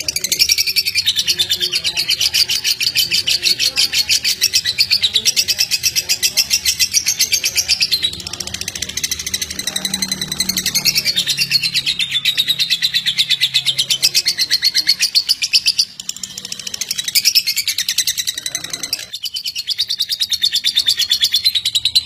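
Caged lovebird singing a long, rapid, high-pitched chattering trill that goes on almost without pause, with short breaks about a third and three-quarters of the way in. This is the stuttering non-stop song that Indonesian bird keepers call 'konslet'.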